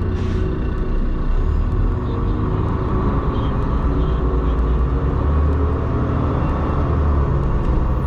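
Dump truck's diesel engine running steadily under way, with road noise: an even low rumble.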